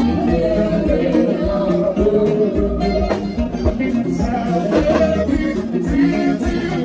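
Live slow Ghanaian gospel highlife played on amplified electric guitar and drums, with a man singing the lead into a microphone.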